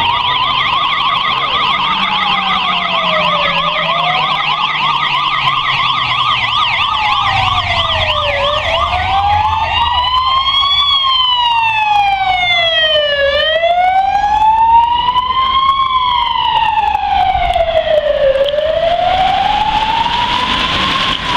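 Police sirens on an emergency run. One siren wails slowly up and down about every five seconds, while a second siren warbles fast over it through the first half. The wail gets brighter and stronger around the middle as the patrol car comes close.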